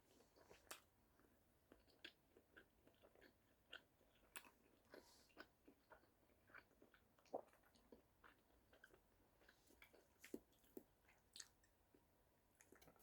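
Faint chewing of a bacon cheeseburger: soft, irregular mouth clicks and smacks, a few each second.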